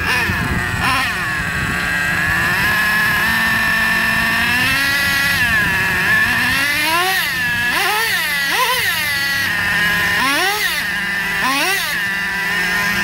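A nitro RC truck's 3.3 two-stroke glow engine runs during break-in, with the truck held off the ground so the wheels spin free. It runs at a steady idle and is revved in about five quick throttle blips in the second half, each pitch rising and falling back.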